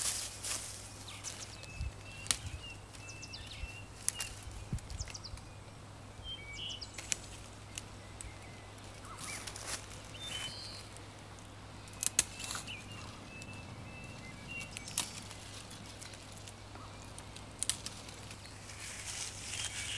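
Dry grass and leaf litter rustling and crunching underfoot and in the hand, with irregular sharp snaps and crackles, as dry tinder and a stick are gathered on foot. Small birds chirp faintly now and then.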